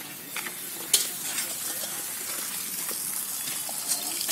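Steady hissing background noise with scattered crackles and clicks, and one sharp click about a second in.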